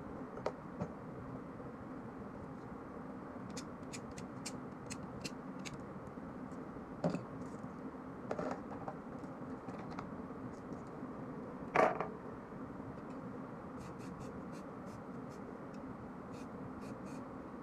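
Small metal clicks and a few knocks as the parts of a stripped TT-type 30 bore pistol and its magazine are handled and set down on a plastic table, the loudest knock about twelve seconds in, over a steady low background hum.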